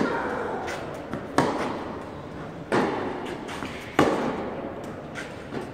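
Tennis balls struck hard by rackets in a rally, four sharp hits about 1.3 seconds apart with a couple of fainter knocks between, each hit echoing in a large indoor hall.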